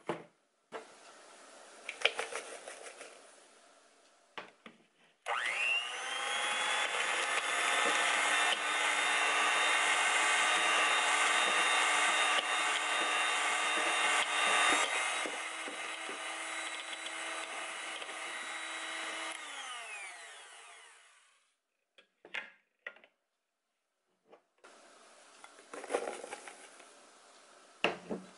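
Electric hand mixer whipping egg whites in a ceramic bowl. The motor spins up about five seconds in and runs steadily, gets quieter around fifteen seconds, and winds down with falling pitch about twenty seconds in. A few clicks and knocks come before and after as the mixer and beaters are handled.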